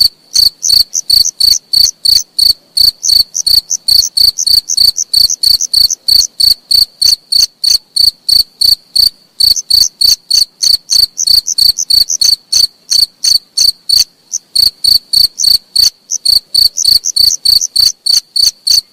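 Insect chirping in a fast, even rhythm: short, loud, high-pitched chirps about three to four a second, cricket-like, with a brief pause about fourteen seconds in.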